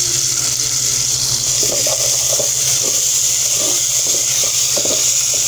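Chopped tomato and onion frying in oil in a metal pot, a steady sizzling hiss. From about a second and a half in, a wooden spatula scrapes and stirs against the pot in short repeated strokes.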